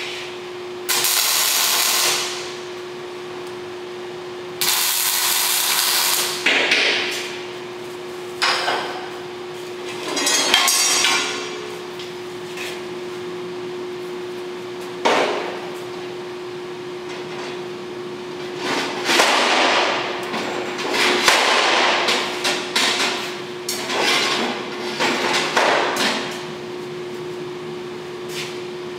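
Two short arc-welding tack welds on steel plate near the start, each a second or so of steady crackling hiss, then knocks and clanks of steel plates being fitted and hammered into place, with a dense run of strikes later on. A steady hum runs underneath.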